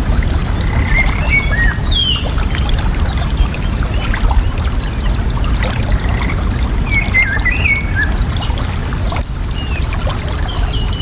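Steadily trickling, flowing water, with a bird chirping over it in short, warbling phrases, the longest about seven seconds in.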